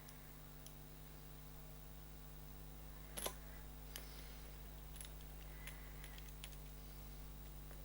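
A few faint clicks and taps of a small hex driver and screws being handled, the loudest about three seconds in, over a steady low electrical hum.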